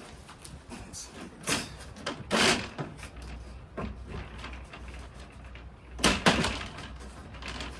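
Vinyl lattice panel being bent and pressed by hand into its grooves in a wooden frame, the plastic clacking and knocking against the frame in a few separate bumps, the loudest about two and a half and six seconds in.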